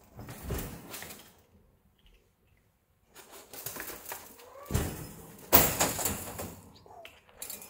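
Ragdoll cats scuffling and playing: irregular rustling and bumping noises, loudest about five and a half seconds in, with a couple of faint short chirp-like sounds.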